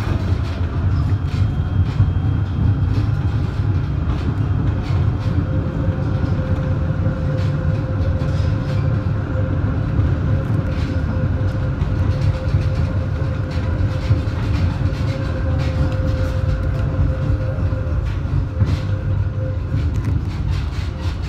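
Tram running along street track, heard from inside at the rear of the car: a steady low rumble with scattered clicks and knocks from the wheels on the rails. A steady whine joins in about five seconds in and fades near the end.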